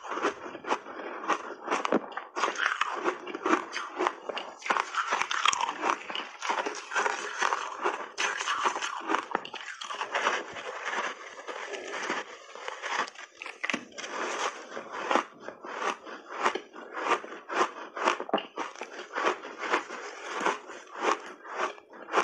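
Refrozen block ice, heavily coated in matcha powder, being bitten and crunched between the teeth in big bites: dense crackling crunches that settle into a steady chewing rhythm of about two crunches a second in the second half.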